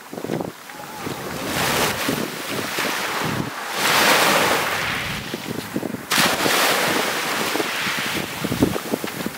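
Small waves breaking and washing up onto a sandy shore. The surf swells and recedes, loudest about four seconds in, with wind buffeting the microphone.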